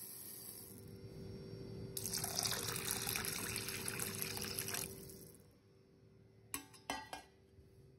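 Water pouring into a glass bowl of rice and sago pearls, running steadily for about three seconds and then stopping. Two light knocks follow near the end.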